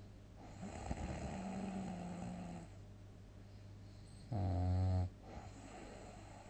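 A person snoring deeply. A rasping snore starts about half a second in and lasts about two seconds. Near the end comes a shorter, much louder buzzing snore. A low, steady hum runs underneath.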